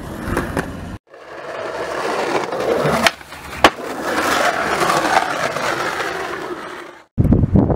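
Skateboard wheels rolling on asphalt, building up and then fading away, with two sharp clacks of the board a little after three seconds in, about half a second apart.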